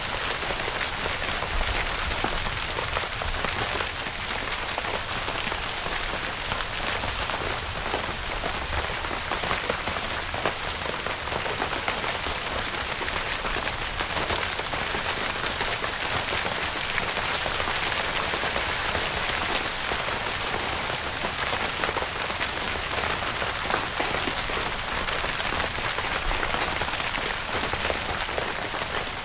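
Steady rain falling on a tent: an even, unbroken hiss made of many small drop impacts.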